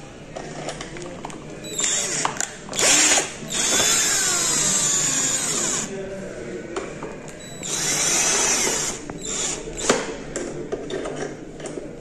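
Cordless drill-driver running in four or five bursts of a second or two, driving in the cover screws of a wall switch plate. Its whine rises and falls in pitch, and a few sharp clicks follow near the end.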